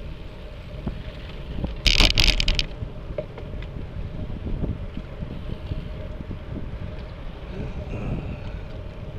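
Wind buffeting the microphone of a camera on a moving road bicycle, a steady low rumble, with a brief loud rattling burst about two seconds in.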